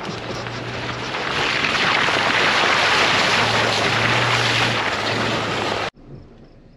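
Tyre and wind noise of a Toyota Tacoma rolling along a dirt logging road, picked up by a camera mounted outside beside the front wheel, over a steady low engine hum. It grows louder about a second in and cuts off suddenly near the end.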